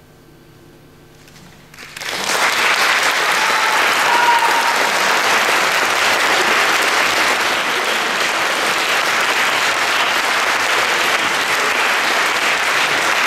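Audience applause starts about two seconds in, after a short quiet, and keeps going steadily.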